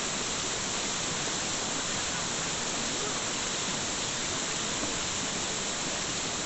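A steady, even rushing noise like falling or running water, with no change in level.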